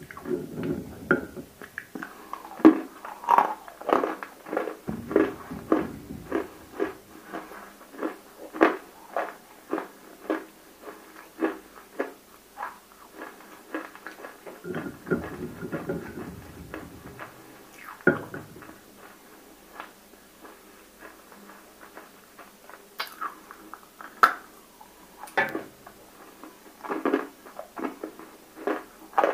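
Close-miked biting and chewing of water-soaked, fully roasted nakumatt (baked edible clay), giving many sharp, irregular crunches and cracks, with a quieter stretch about two-thirds of the way through.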